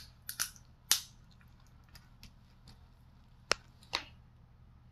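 Wooden craft stick stirring glue-based slime in a plastic bowl: several sharp taps of the stick against the bowl, with wet squishing.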